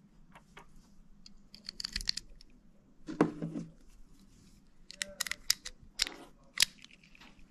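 Metal-on-metal clicks of small 6.35 mm (.25 ACP) brass cartridges being pressed one by one into the magazine of a C.G. Haenel Schmeisser Model 1 pocket pistol, with a louder clatter about three seconds in. Near the end the magazine is pushed into the pistol's grip with two sharp clicks.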